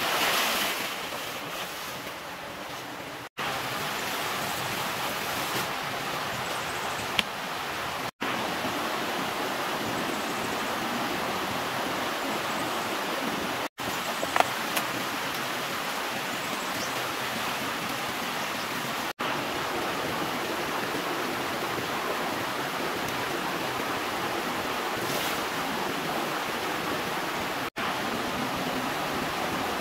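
Steady rushing of a shallow forest stream, an even hiss broken by brief gaps every few seconds, with a couple of faint snaps.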